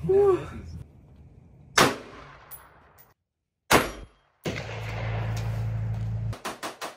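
Two single rifle shots about two seconds apart, each a sharp crack with a short echoing tail. Near the end a rapid, even string of sharp cracks begins.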